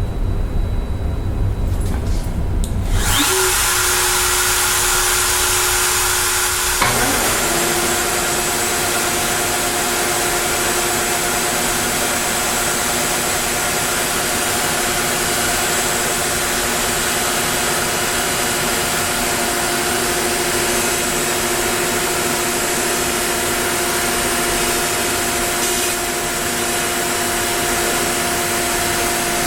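A steady rushing machine noise starts about three seconds in. About seven seconds in, the Onefinity CNC router's spindle spins up with a rising whine that settles into a steady hum as it runs the cutting job.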